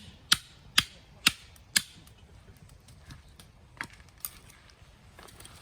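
A run of sharp, evenly spaced clicks, about two a second, that stops about two seconds in, followed by two fainter clicks a little later.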